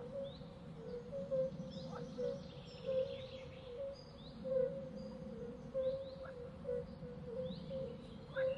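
Outdoor ambience of several birds chirping and calling, with short high chirps and quick repeated lower notes over a steady background hum of the countryside.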